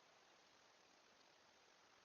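Near silence: a faint, steady hiss from the trail camera's microphone, with no distinct sounds.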